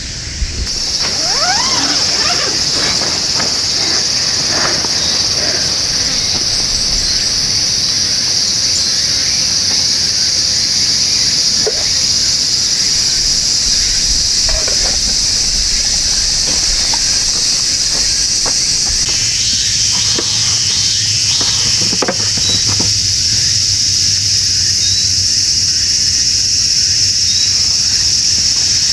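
A loud, steady, high-pitched insect drone that sets in about a second in and holds throughout, with a few faint knocks and clinks now and then.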